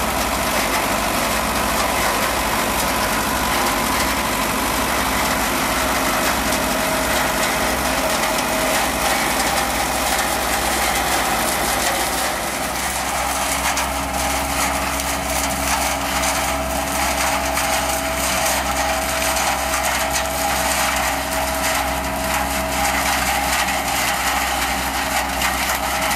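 Tractor engine running steadily with a tractor-mounted ASA-LIFT GB-100 green bean harvester at work, a steady whine over the drone of the machinery. The pitch of the whine shifts about halfway through.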